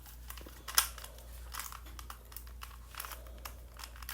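Plastic puzzle cube being twisted and handled: irregular small clicks and rattles, with one sharp, louder click about a second in.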